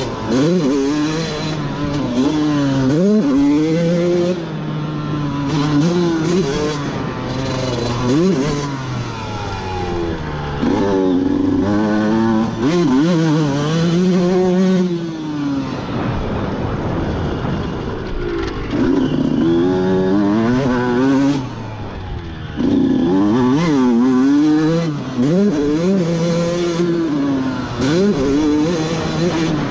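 Honda two-stroke motocross bike ridden hard on a dirt track: the engine revs up and falls back over and over as the rider works the throttle and shifts through the gears, dropping off briefly about two-thirds of the way through.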